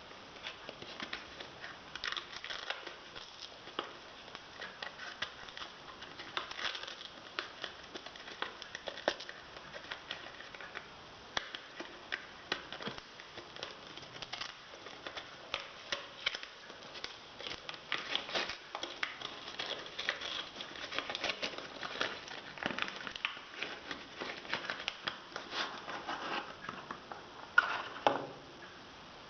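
Hands being lathered with soap: a steady run of small wet squelches and crackles as the foam is worked between the fingers, with one louder smack near the end.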